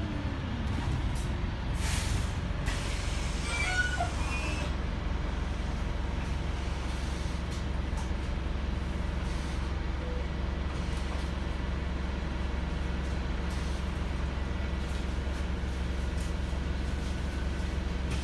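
Wright StreetLite bus's Daimler (Mercedes-Benz) OM934 four-cylinder diesel idling steadily with the bus at a stop, heard from inside the saloon. A short burst of air hiss comes about two seconds in.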